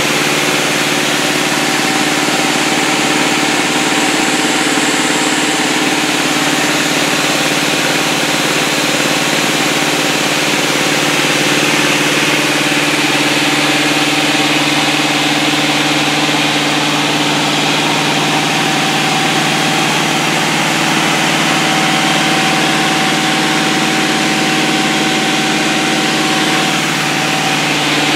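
Van's RV-6 light aircraft's piston engine and propeller running steadily at cruise, with a few constant tones under a wide wash of wind and airframe noise, heard from inside the cockpit.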